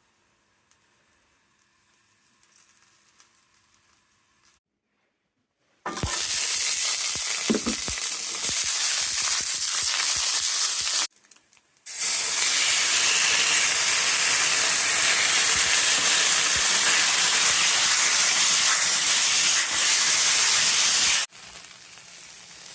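Pork and garlic scapes stir-frying in a hot pan: a loud, steady sizzle that starts about six seconds in, breaks off briefly near the middle, and stops shortly before the end.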